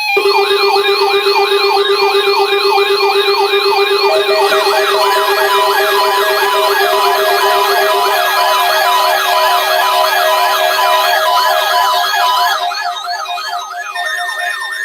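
Several electronic sirens and alert tones sounding at once: fast rising-and-falling wailing sweeps, a few per second, over steady and pulsing beeps. The layer thins out and drops in loudness about twelve seconds in.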